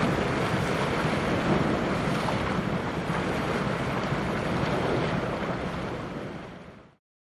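Wind buffeting the microphone over the wash of choppy sea water, a steady rushing noise that fades out to silence near the end.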